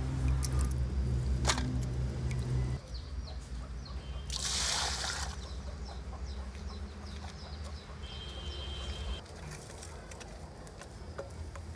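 Small fish being squeezed and rinsed by hand in a steel pan of water, water sloshing and dribbling off them; about four seconds in comes a short loud rush of water, with birds calling in the background.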